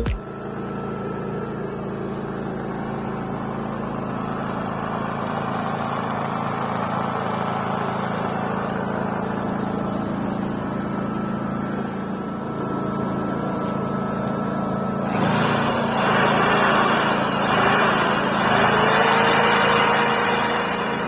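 CGM3300i inverter generator's engine running steadily with a constant low hum. About two-thirds of the way through, a louder rushing noise joins for several seconds, with a tone rising in pitch near the end.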